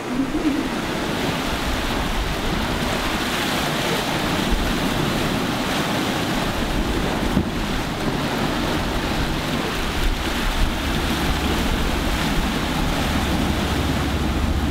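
Sea waves rushing past a sailing catamaran under way, with wind buffeting the microphone, a steady noise; a low steady rumble comes in near the end.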